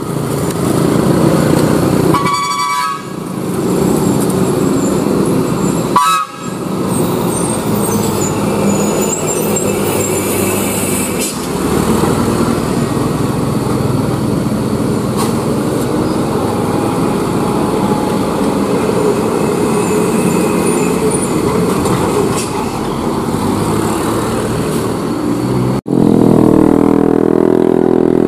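Road traffic on a hairpin bend: motorcycle and truck engines running as they pass, with short horn toots about two and a half and six seconds in. Near the end a motorcycle engine close by gets louder.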